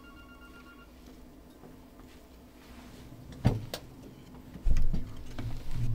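A few knocks and low thumps of someone settling in at the desk and handling things close to the microphone, the loudest about a second before the end, over a low steady hum. A brief steady tone ends about a second in.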